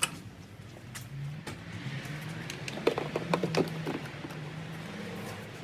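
BMW N55 turbocharged straight-six engine idling steadily, apparently just after being started on new spark plugs, with a few clicks and knocks from handling near the middle.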